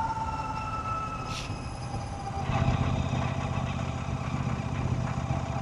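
Royal Enfield Shotgun 650's parallel-twin engine running. About halfway in it grows louder and settles into a steady low beat, while a faint, slowly falling horn-like tone fades out in the first half.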